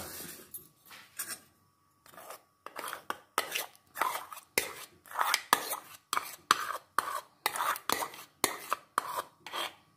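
Metal spoon scraping thick mayonnaise out of a ceramic bowl into a glass bowl: quick repeated scrapes of the spoon against the bowl, sparse at first, then about three a second.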